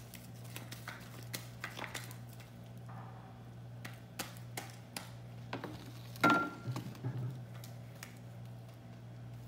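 Shaving-cream slime being kneaded and stretched by hand, giving irregular small squelching clicks, with one louder sharp sound about six seconds in.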